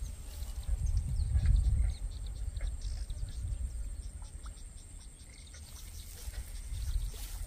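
Outdoor pond-side ambience: a low rumble, loudest in the first two seconds, under a faint steady high whine and scattered small chirps and ticks.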